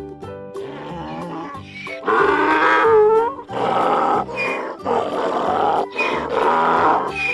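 Children's background music with a recorded farm-animal call sound effect, a rough, noisy call repeated about four times, each about a second long, starting about two seconds in.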